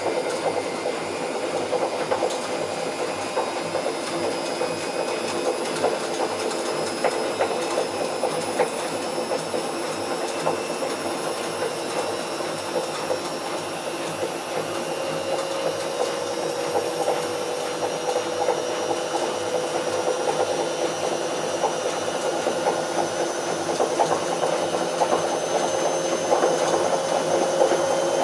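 Bauknecht WA Plus 844 washing machine running with its drum turning, a steady mechanical noise with a faint whine slowly rising in pitch. It gets a little louder near the end. This is the sound of a damaged drum bearing.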